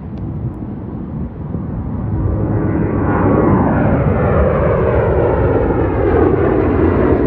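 Jet engines of a departing Boeing 737-800 airliner at takeoff power, the noise growing louder over the first three seconds and then holding steady with a slowly sweeping, phasing quality.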